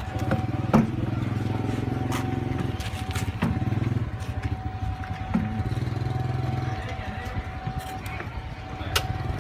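Electric motor of a Heli CDD16-D930 stand-on stacker forklift humming low in several spells of one to two seconds, several of them starting with a sharp click.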